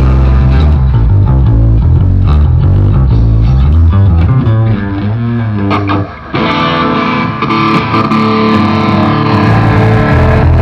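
A rock band plays loud amplified music through the stage PA during a sound check, with electric guitar and bass guitar to the fore. The playing dips briefly about six seconds in, then resumes with fuller, sustained guitar chords.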